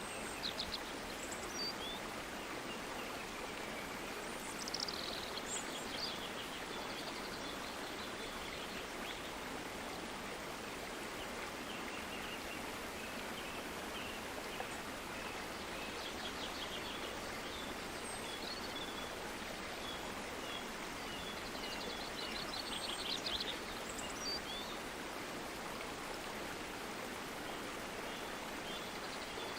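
Stream water flowing steadily, an even rushing hiss, with birds chirping and trilling now and then above it, most clearly about five seconds in and again past the middle.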